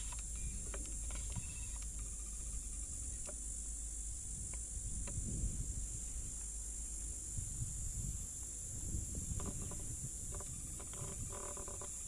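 Steady, high-pitched chorus of insects such as crickets or cicadas, with an uneven low rumble underneath.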